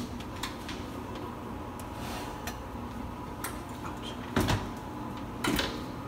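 Electric oven being closed: a few light metal clicks, then two loud clanks about a second apart near the end as the oven door is swung shut.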